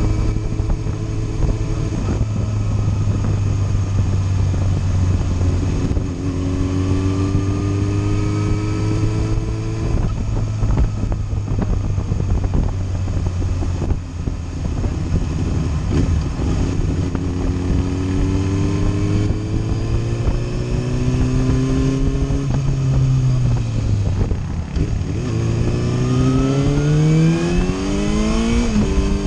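Sport motorcycle engine heard from the rider's seat while riding, the revs climbing in several long pulls through the gears. Just after the middle the revs drop briefly, then rise steeply in a hard acceleration near the end.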